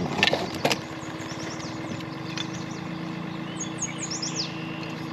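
Marsh songbirds chirping in short, quick, falling notes, thickest about three and a half to four and a half seconds in, over a steady low motor hum. There are a few sharp knocks in the first second.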